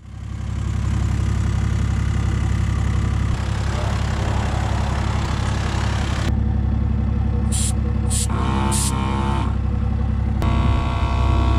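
Drivetech4x4 12 V twin-cylinder portable air compressor running: a steady low hum under a noisy clatter. About six seconds in the noise thins to the low hum with a few short hissing bursts, and the full noise returns near the end.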